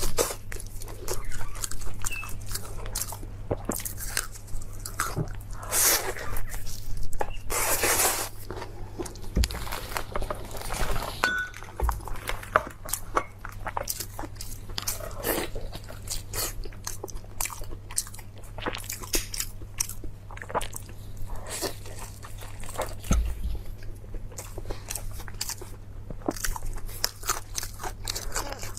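Close-miked eating: repeated biting, crunching and chewing, with irregular wet clicks and a few louder crunchy bites.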